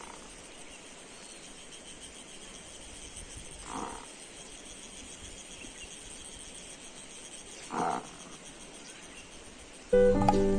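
A calf calling: three short calls about four seconds apart, over a faint steady background hiss. Background music comes back in near the end.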